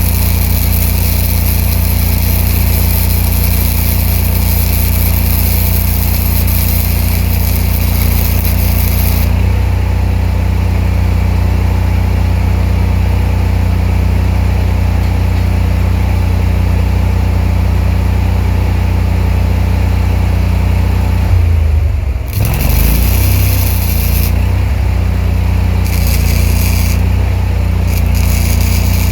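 An engine running steadily, with the sizzle of a MIG spool-gun welding arc over it for about the first nine seconds. The arc then stops and the engine note drops as the load comes off, wavers briefly a little after twenty seconds, and the arc sizzles again in short runs near the end.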